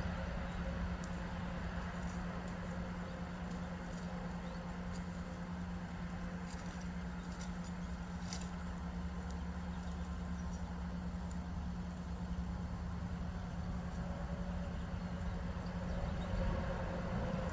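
Steady background hum and low rumble, with scattered faint, short high ticks.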